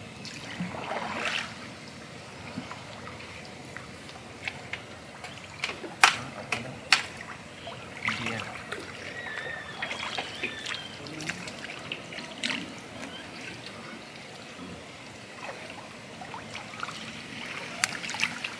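Water trickling and splashing as a trotline is pulled hand over hand out of the canal into a wooden boat, with a few sharp knocks, the loudest about six and seven seconds in.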